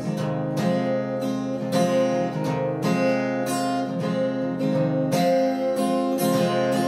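Acoustic guitar with a capo strummed in a steady rhythm, about two strokes a second, the chords ringing on between strokes, with no voice over it.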